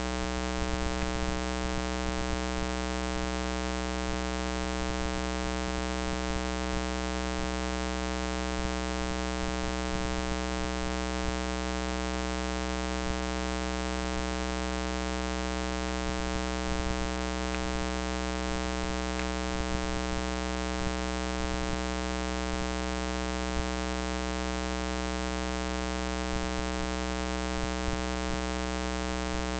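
Steady electrical hum with many overtones, unchanging throughout, with a few faint clicks.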